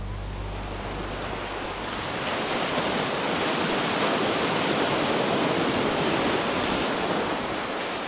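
Ocean surf breaking and washing up a sandy beach, a steady rush of water that swells up about two seconds in.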